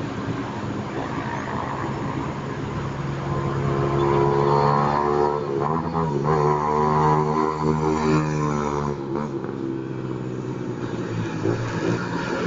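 Yamaha Fazer 150's single-cylinder engine running through an aftermarket Roncar sport exhaust as the bike is ridden. The exhaust note swells from about four seconds in, holds a steady pitch, and drops back about nine seconds in.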